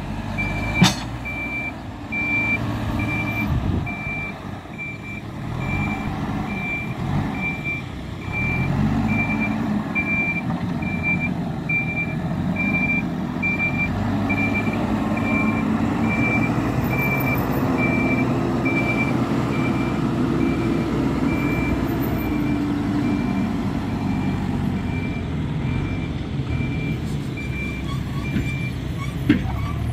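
Hidromek 102S Supra backhoe loader's diesel engine working, rising and falling in pitch as the machine manoeuvres. Its reversing alarm beeps steadily throughout. A single sharp knock comes about a second in.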